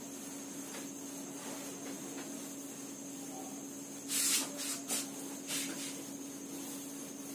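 Cloth wiping marker writing off a whiteboard: a few short swishing strokes, the loudest about four seconds in, over a steady low hum.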